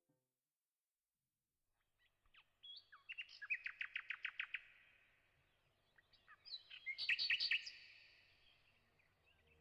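A songbird singing, starting after about two seconds of silence: two phrases, each with a fast run of about eight clear, repeated high notes a second, the second phrase about three seconds after the first.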